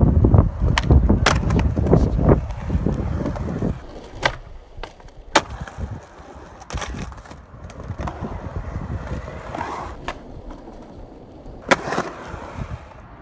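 Skateboard wheels rolling on concrete with a loud rumble and rapid clacks for the first few seconds, then quieter rolling with a few sharp cracks of the board popping and landing, about four, five and twelve seconds in.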